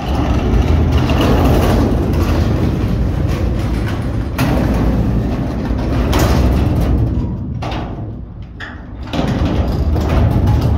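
Garbage truck running loud, its engine working hard with a couple of sharp clanks. The noise starts suddenly, eases off about eight seconds in, then rises again.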